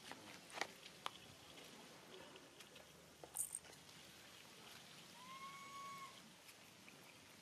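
Faint background with a few light clicks, and about five seconds in one clear whistled animal call, about a second long, its pitch rising slightly and then falling.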